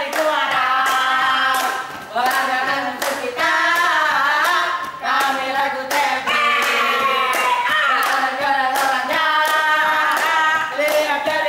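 A group of voices singing a chant together, with rhythmic hand claps about twice a second.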